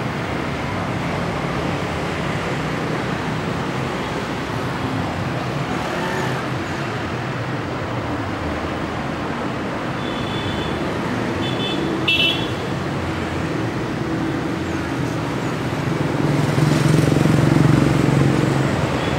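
Diesel locomotive engine running as it shunts a passenger train slowly forward, over a steady traffic-like rumble. A few short high beeps come a little past halfway, and the low engine sound swells near the end as the locomotive draws closer.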